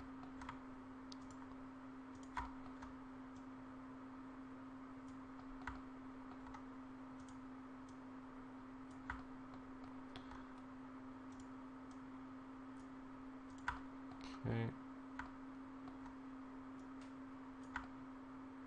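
Sparse computer mouse and keyboard clicks, about eight spread unevenly, over a steady low electrical hum. A short louder sound comes about three-quarters through.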